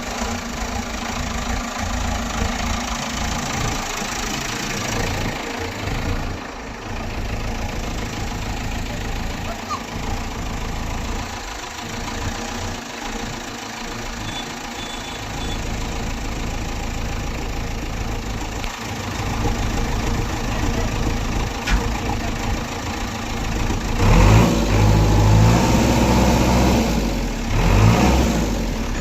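JCB 3DX backhoe loader's diesel engine idling steadily, growing louder for a few seconds near the end.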